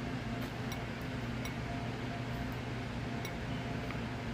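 Steady low mechanical hum, with a few faint scattered clicks and clinks from people eating.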